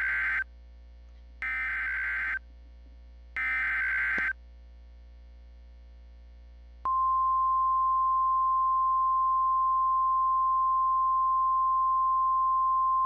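Emergency Alert System SAME header: three one-second digital data bursts about a second apart, then a steady single-pitch alert tone that starts about seven seconds in and holds to the end. The header and tone announce a new emergency message.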